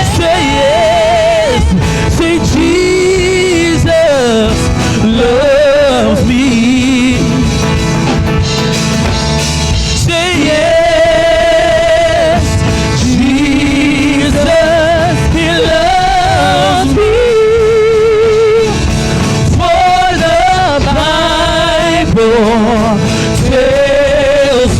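Male gospel singer performing with live band backing, singing long held notes and runs with heavy vibrato.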